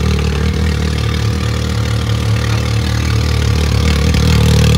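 Can-Am Maverick X3 side-by-side's engine idling steadily.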